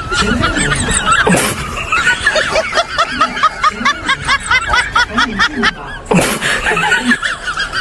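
Cartoonish snickering laugh sound effects, high and jittery, repeated in quick runs over background music, with two brief whooshing bursts, one about a second and a half in and one near six seconds.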